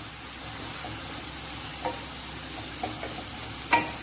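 Shredded cabbage and capsicum with spice masala sizzling steadily in hot oil in a nonstick kadai as a spatula stirs them, with a few light clicks of the spatula against the pan. A brief squeak comes near the end.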